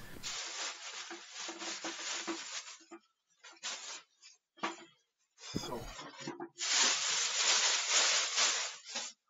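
Plastic packaging film rustling and crinkling as a popcorn machine is unwrapped, with a short bump just past the middle and denser, louder rustling over the last few seconds.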